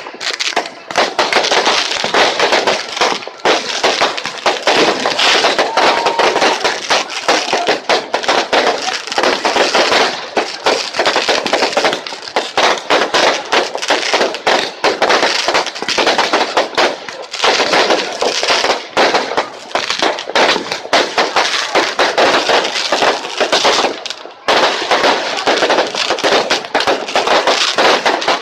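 Fireworks going off in a dense, continuous barrage of rapid crackles and pops, with a brief lull about 24 seconds in.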